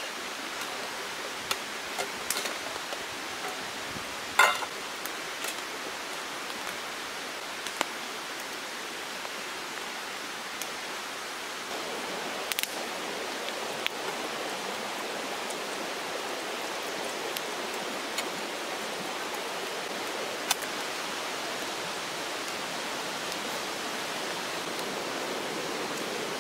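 Steady rushing of a nearby river, with a few sharp clicks and knocks over it, the loudest about four seconds in.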